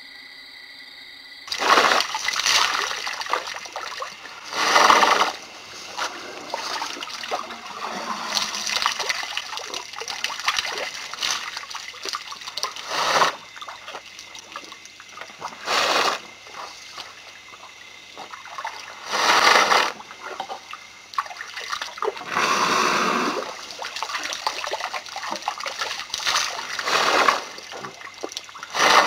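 Elephant drinking at the water's edge: a loud splashing pour every few seconds as water is drawn up the trunk and emptied into the mouth, with softer trickling and sloshing in between.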